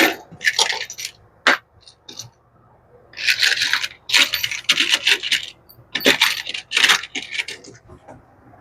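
Small stainless steel screws clinking and rattling against each other as they are rummaged through, in several bursts with short pauses between.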